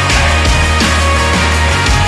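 Loud background music with a heavy bass line and a steady beat.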